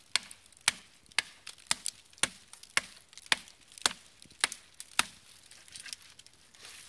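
A Servco credit card axe blade zip-tied to a stick handle chopping into a thin sapling trunk: about ten sharp blows, roughly two a second, stopping about five seconds in.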